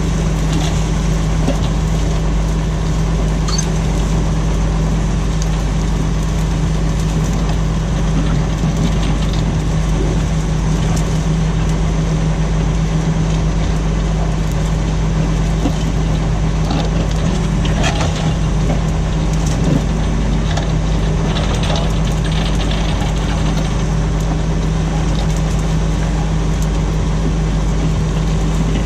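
Tractor engine running steadily while pulling a plough, with an even, unbroken drone and a few faint clicks and knocks over it.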